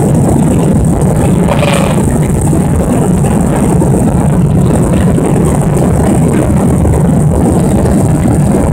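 Jet engines of a Boeing 737, heard from inside the passenger cabin while the plane climbs after takeoff: a steady, loud rush of engine and airflow noise.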